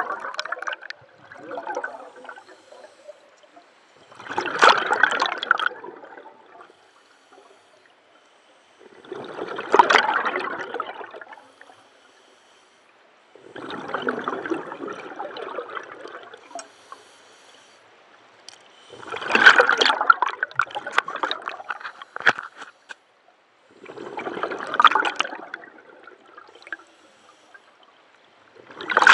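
Scuba diver's exhaled regulator bubbles gurgling and rushing past the head-mounted camera housing, a burst with each breath out, about once every five seconds.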